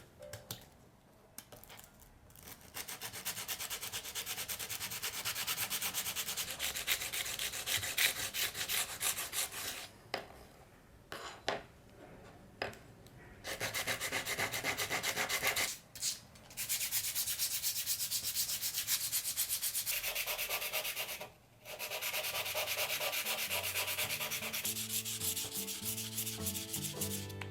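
Beech wood being hand-sanded with quick back-and-forth strokes, in several spells broken by short pauses.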